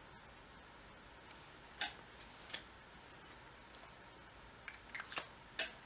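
Several faint, irregular small clicks and lip sounds as a lipstick is applied and the lips are worked together, bunched more closely near the end.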